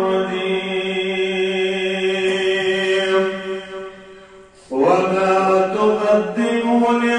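A man reciting the Quran in Arabic in a melodic chanted style, holding one long steady note for about three and a half seconds that fades away. After a brief breath pause a new phrase begins just before five seconds in.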